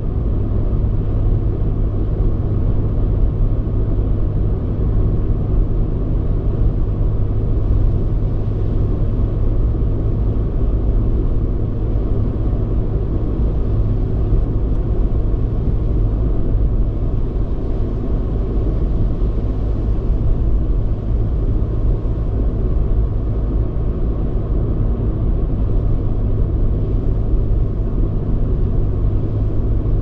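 A car driving at a steady cruising speed on an expressway: a constant low rumble of engine and tyre-on-road noise that does not change.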